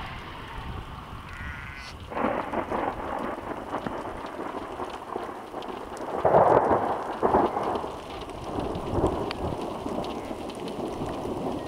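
Thunder rumbling from a nearby storm, setting in suddenly about two seconds in and rolling on in several peals, loudest around six to seven seconds in.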